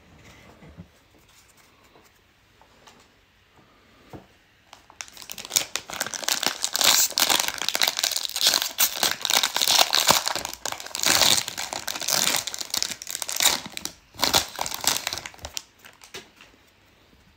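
A plastic baseball-card pack wrapper being torn open and crinkled by hand. The crinkling starts about five seconds in and goes on for some ten seconds, then stops.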